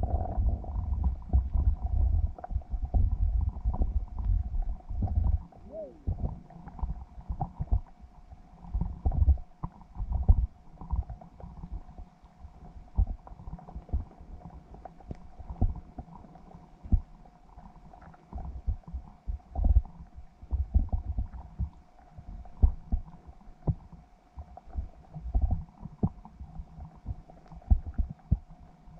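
Muffled underwater sound: irregular low thumps and rumbles of water moving against a submerged camera, with a faint steady hum.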